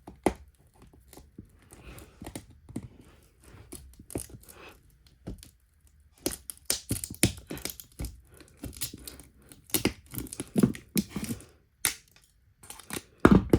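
Irregular clicks, scrapes and tearing rasps as the charge port assembly is pried and pulled out of a disassembled iPhone 4. The noises come thicker from about halfway through, with a louder thud near the end.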